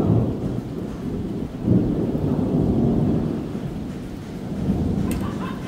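Long rolling thunder rumbling, swelling and fading in waves, with rain.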